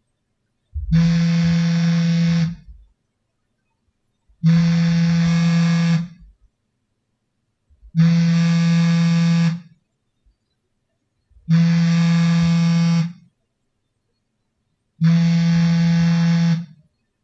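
Samsung smartphone's vibration motor buzzing for an incoming call: five steady buzzes of about a second and a half each, starting every three and a half seconds, with silence between them.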